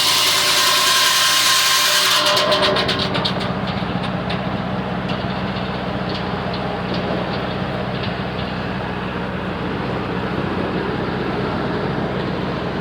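Homemade sawmill's blade cutting through a log with a bright hissing rasp that cuts off about two seconds in as the cut ends. The mill's engine keeps running steadily afterwards, with the saw turning free.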